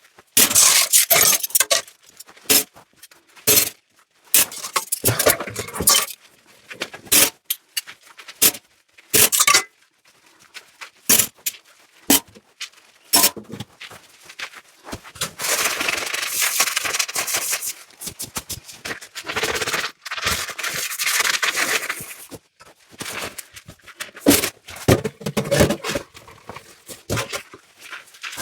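Dishes being washed by hand: frequent sharp clinks and knocks of dishes and utensils against each other and the sink, with scraping and rubbing. About halfway through there are two stretches of a steady rushing hiss, a few seconds each.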